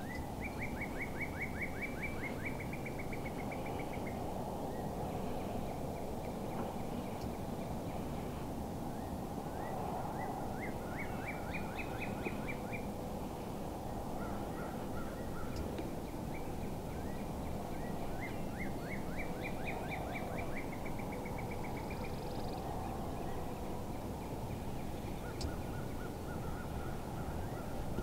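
Bird calling in three long runs of rapid, evenly spaced short notes, with a few shorter, lower runs between them, over a steady low background rush.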